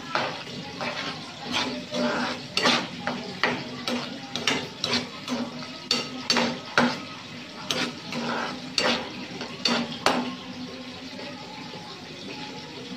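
Galunggong (round scad) frying in oil in a pan: a string of sharp, irregular clicks and clatters for about the first ten seconds, then a steadier, quieter sizzle.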